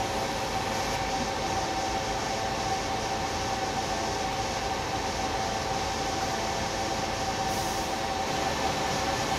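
HP L28500 latex roll-to-roll inkjet printer running while it prints: a steady mechanical whir and hiss with a constant humming tone.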